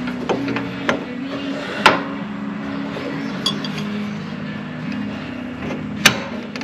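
Metal parts clinking and knocking as a mower idler pulley and its bolt are worked into a bracket by hand: a few sharp knocks, the loudest about two seconds in and near the end, over a steady low hum.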